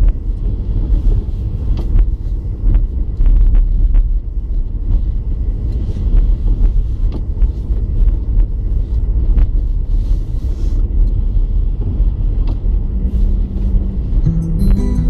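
Car driving on a snow-covered road, heard from inside the cabin: a steady low rumble of engine and tyres with scattered short knocks. Music comes in near the end.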